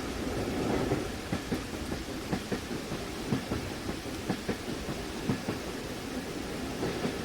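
Inside a train compartment, a passenger carriage runs with a steady low rumble, and its wheels knock often over the rail joints. Steady rain noise sits under it.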